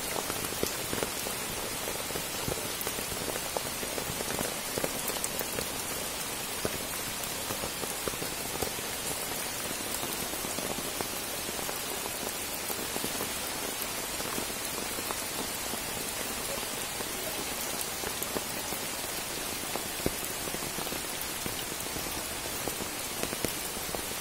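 Steady rain falling on pond water and wet leaf litter, a dense even hiss of many small drops.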